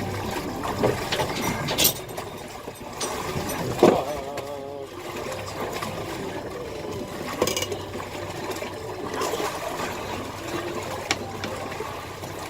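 Boat motor idling with water splashing around the hull, and a few sharp knocks as gear is handled aboard.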